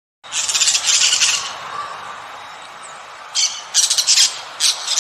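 A bird calling loudly: one long call near the start, then a quick run of shorter calls in the second half.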